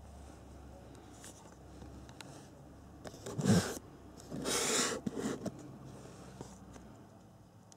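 Cardboard box being handled and turned, with two short scraping rubs of cardboard around the middle, followed by a few light clicks.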